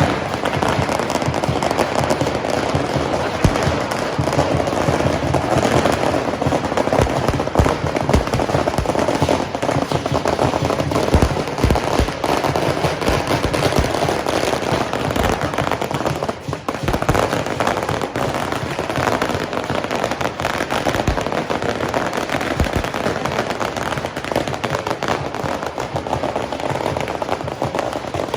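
A long string of firecrackers going off in a dense, continuous rattle of rapid cracks, with a brief lull about sixteen seconds in before the popping carries on.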